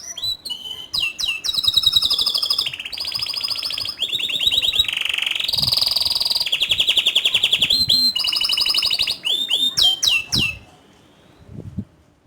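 Domestic canary singing a long song of fast rolling trills, each a rapid run of repeated high notes, with quick downward-sweeping notes near the start and again near the end. The song stops about ten and a half seconds in.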